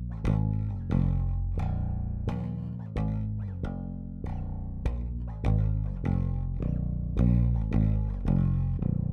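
Warwick Vampyre SN-5 five-string electric bass with MEC J pickups and its onboard EQ bypassed, played as a run of plucked notes, each ringing and dying away, about one to two notes a second.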